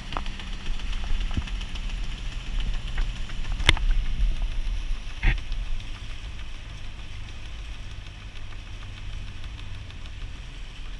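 Outrigger boat's engine running steadily with a low hum, with wind noise on the microphone. Two sharp knocks come about four and five seconds in, and the sound eases a little after about six seconds.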